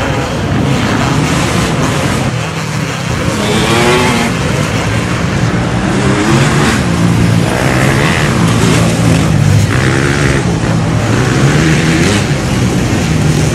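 Many off-road dirt bike engines revving hard together as a pack climbs a rocky hill, a loud, continuous din whose pitch keeps rising and falling as riders open and close the throttle.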